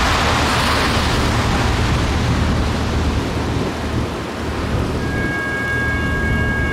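Wind buffeting the microphone with a heavy low rumble, over a freight train approaching at a distance. About five seconds in, a steady high ringing tone sets in as the grade crossing signal starts.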